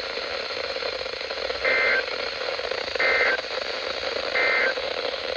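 Emergency Alert System end-of-message data bursts: three short, harsh two-pitch digital squawks about a second and a half apart, over steady radio static. They mark the end of a severe thunderstorm warning broadcast.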